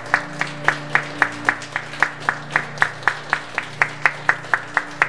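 Audience applause clapped in a steady, even rhythm of about four claps a second, with a low steady hum underneath.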